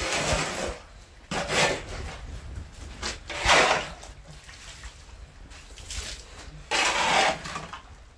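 Metal shovel blade scraping and pushing muddy water across a wet dirt floor in a few separate swishing strokes, the loudest about three and a half seconds in.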